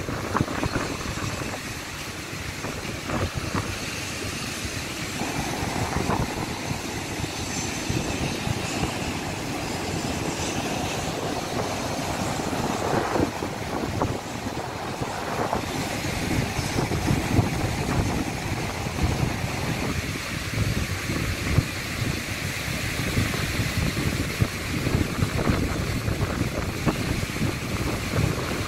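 Storm wind buffeting the microphone in a gusty low rumble, over the wash of heavy surf breaking on the beach. The gusts grow stronger about halfway through.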